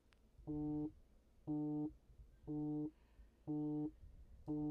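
Fantasy draft app's pick-clock warning beeps: a short, low beep about once a second, five times, as the pick timer runs out its last seconds.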